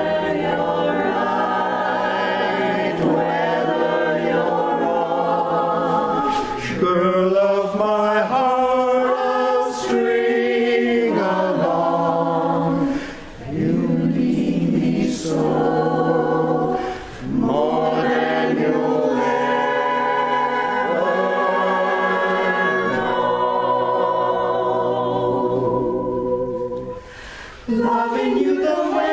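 Small mixed-voice jazz chorus, men and women, singing a cappella in close harmony: held chords that move and swell, with short breaks for breath twice midway and a longer one near the end.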